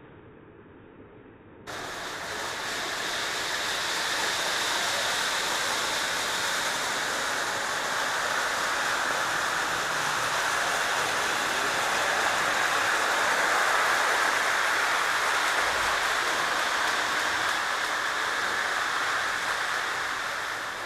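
Model train running on its layout track: a steady rushing noise of wheels and motor that starts suddenly about two seconds in.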